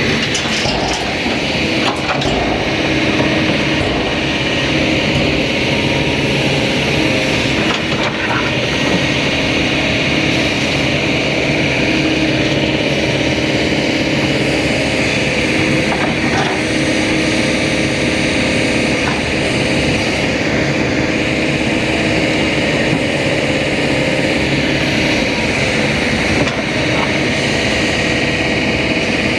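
Kobelco excavator's diesel engine running steadily under work with a hydraulic whine, and a few faint knocks.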